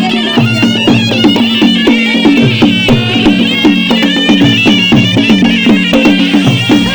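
Traditional Nepali folk music: a piping reed wind melody over a steady drone, with quick regular drumbeats.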